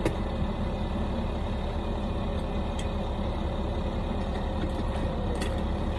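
Steady low machine hum with an even, unchanging drone, and faint short clicks about three and five and a half seconds in.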